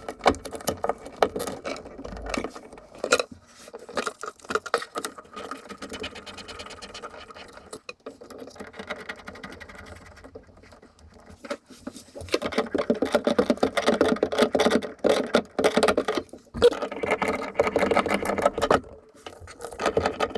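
Hand work on under-sink plumbing: rapid, irregular clicking and scraping that eases off for a few seconds midway, then picks up again.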